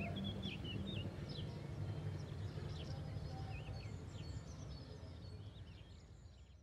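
Birds chirping, many short quick calls over a low steady background rumble, the whole fading out and cutting off at the very end.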